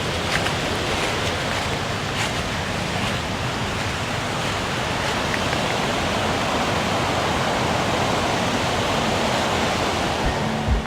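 Rushing water of a mountain creek, a steady, unbroken roar of flowing water.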